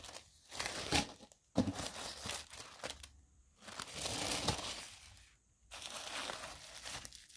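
Kraft wrapping paper and shredded crinkle-paper filler rustling and crinkling in a cardboard box as hands fold the paper back and reach into the packing, in four or five bursts with short pauses between.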